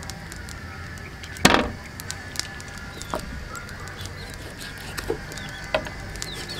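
Kitchen knife cutting through a raw duck carcass on a wooden chopping block, with one louder knock about a second and a half in and a few lighter taps of the blade and meat on the board. Birds chirp in the background.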